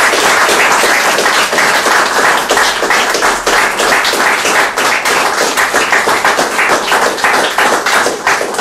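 Small audience applauding, dense steady hand-clapping.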